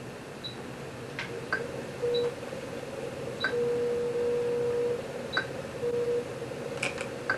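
Sip-and-puff operated environmental control unit (Scanning Directory II) working the light switching: short high beeps every second or two, a few sharp clicks, and a steady mid-pitched tone that comes and goes, held longest for about a second and a half near the middle.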